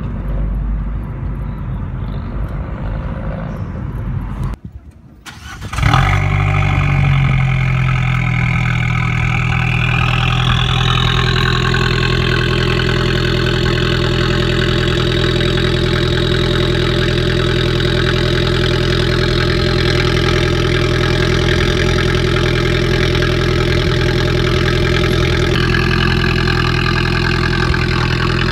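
Road and engine noise from inside a moving car. After a short break, an Abarth 595's turbocharged four-cylinder starts, flares briefly and settles into a steady idle, heard close behind at its exhaust.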